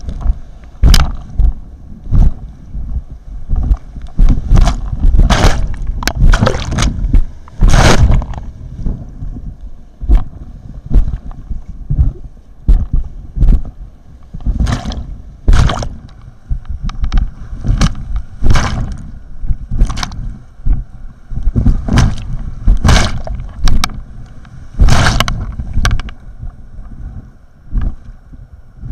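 Rushing whitewater around an inflatable kayak, with irregular loud splashes of paddle strokes and waves hitting the boat about every second or two over a steady low rumble of the river and wind buffeting the microphone.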